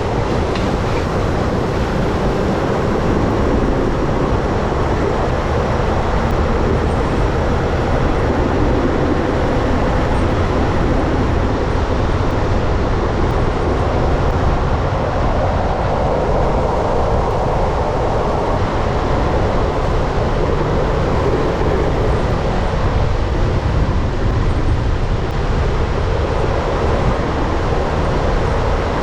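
Mack snow plow truck's diesel engine running with a steady, loud rumble.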